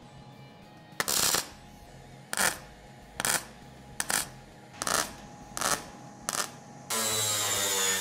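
MIG welder laying short stitch tacks on a sheet-steel door patch panel: seven brief bursts of arc crackle, roughly one a second. Near the end an angle grinder starts grinding the welds with a steady high whine.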